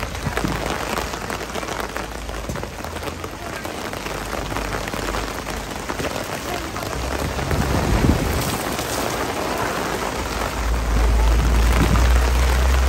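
Steady rain falling on wet paving and on the stall awning overhead, with wind buffeting the microphone in a deep rumble that grows strongest near the end.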